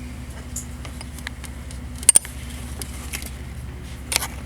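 A steady low mechanical rumble, like an engine idling, runs under the scene. Over it come light clicks of parts and tools being handled, with a loud sharp double click about two seconds in and another near the end.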